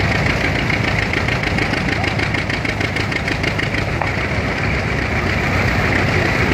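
Belt-driven threshing machine running steadily under load as grain sheaves are fed in, together with the engine that drives it, with a fast rhythmic chatter in the middle.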